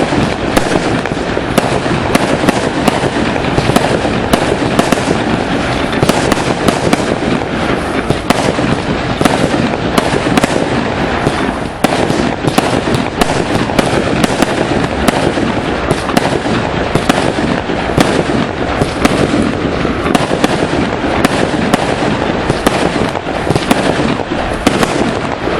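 Fireworks display: a dense, continuous barrage of bangs and crackling shell bursts, many reports a second overlapping one another.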